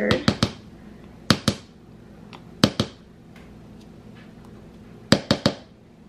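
Sharp taps and clicks of a plastic measuring spoon and spatula as mustard is scraped and knocked off the spoon into a mixing bowl. They come in small groups of one to three, and the last group is the utensils being set down on a plastic cutting board near the end.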